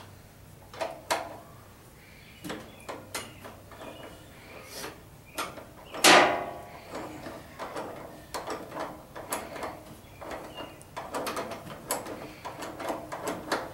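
A hand wrench working a steel pinch bolt on a garden tractor's steering spindle: scattered metallic clicks and clinks, with one loud ringing clank about six seconds in and quicker runs of clicking near the end.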